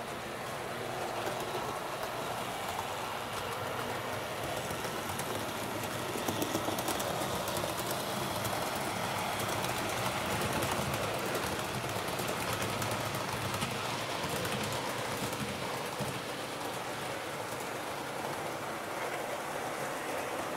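HO-scale model train, a Roco NS 1100 electric locomotive with its coaches, running along the track: a steady rolling rattle with fine light clicks, a little louder in the middle.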